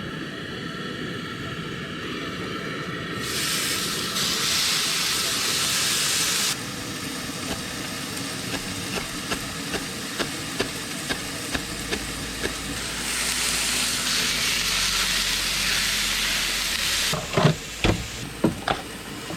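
Food sizzling as it fries in a pan, in stretches of loud hiss, with scattered clicks and a few knocks near the end.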